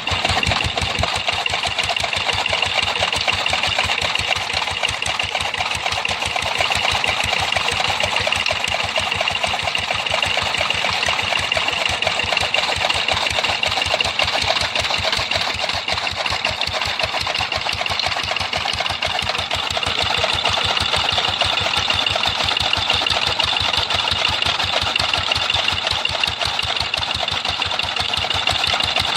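An engine running steadily at a constant speed, with a rapid, even beat of exhaust thumps.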